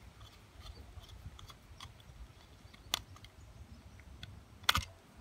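Small scattered clicks and light scraping of a screwdriver working a terminal screw on a plastic electrical wall socket, tightening a loose wire. There is a sharper click about three seconds in and a louder cluster of clicks near the end.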